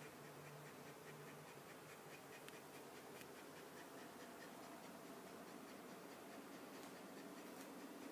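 Near silence: faint room tone with a few light ticks.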